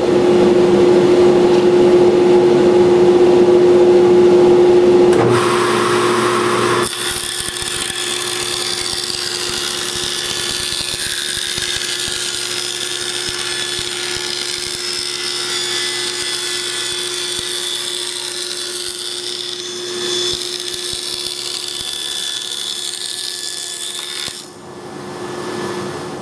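Table saw running and cutting a plywood panel, with a dust collector running. The sound changes about five to seven seconds in to a long, steady high hiss, and drops off near the end.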